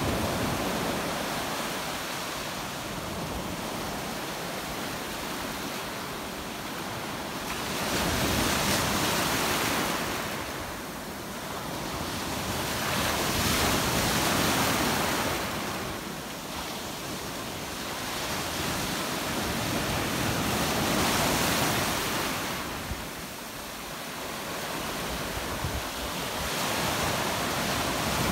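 Ocean surf breaking and washing up on a sandy beach, surging louder every six or seven seconds as each wave breaks.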